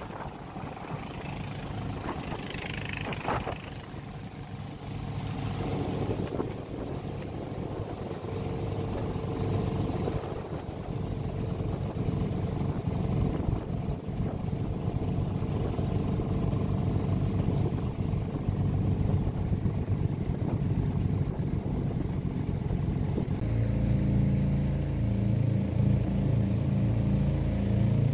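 Motorboat engine running steadily, growing louder, with its note turning stronger and more even about three-quarters of the way through.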